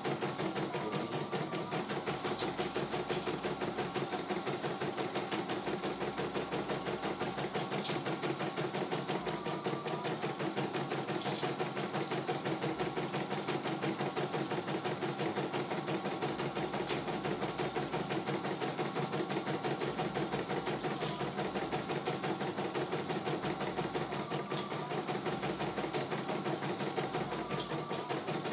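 CNY E900 computerized embroidery machine stitching a design, its needle running in a rapid, even rhythm of strokes.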